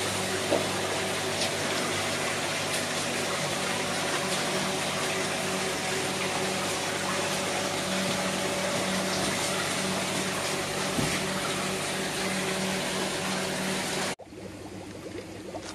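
Goldfish tank aeration running: air bubbling up through sponge filters and air stones over a steady hum from the air pumps. It cuts off abruptly about fourteen seconds in, leaving a much quieter background.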